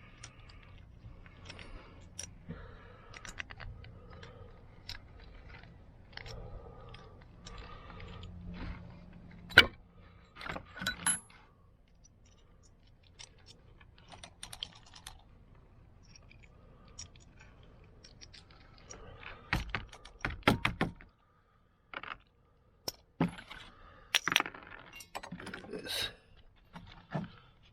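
Small metal carburetor parts and hand tools clicking and clinking as they are handled, with a few sharper knocks. A faint low hum stops about three-quarters of the way through.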